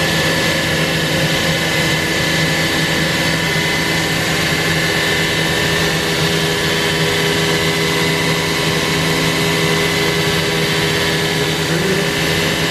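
CNC router running steadily, a loud even hum and rush with a few held tones that do not change in pitch.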